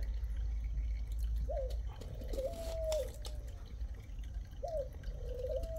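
A dove cooing twice: each coo is a short rising-and-falling note followed by a longer held note that drops away at the end. A few faint clicks are heard under it.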